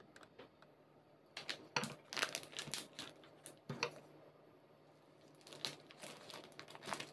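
Plastic food wrapping crinkling and tearing as it is peeled off a log of surimi, in several bursts: from about a second and a half in, briefly near the middle, and again near the end.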